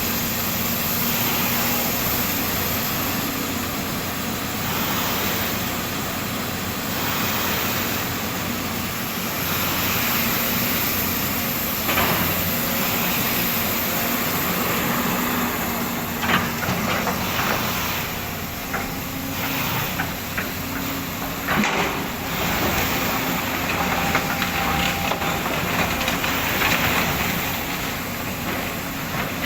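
Volvo excavator's diesel engine running steadily while it digs, with a few sharp metallic clanks in the second half.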